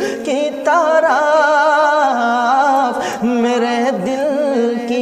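Man singing an Urdu naat, drawing out long melismatic notes that waver and glide, with brief breaths in between.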